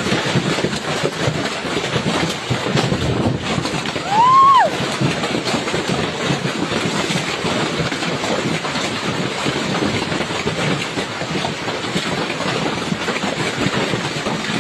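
Hail and heavy rain pelting down in a summer storm: a loud, steady, dense rattle of countless small hits. About four seconds in, a short high-pitched cry rises and falls over it.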